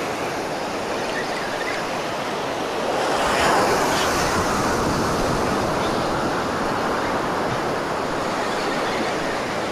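Ocean surf breaking on a sandy beach: a steady wash of waves, swelling louder about three seconds in as a wave breaks.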